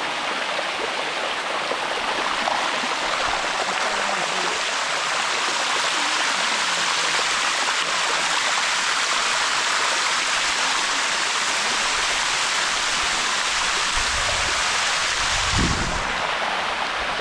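Water of the Sticky Waterfall (Bua Tong) cascading steadily over its limestone rocks, heard up close as a loud, even rush. A brief low rumble near the end.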